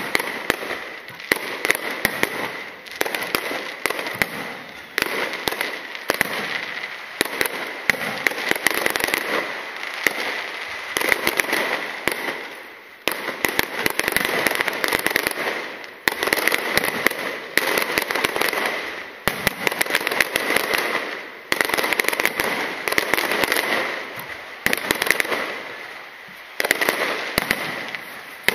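Aerial fireworks shells bursting overhead in quick succession with dense crackling. The sharp reports and crackle swell and fade in waves every second or two.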